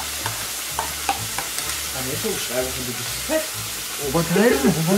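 Burger patties sizzling as they fry on the grill, a steady hiss with small crackles of spitting fat. A voice sounds briefly about four seconds in.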